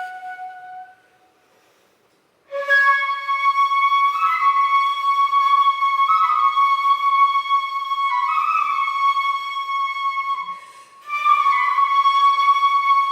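Shinobue, a Japanese transverse bamboo flute, played solo. A held note dies away within the first second, and after a short pause a slow phrase of long, high held notes moves in small steps, with a brief breath about ten seconds in before the next phrase begins.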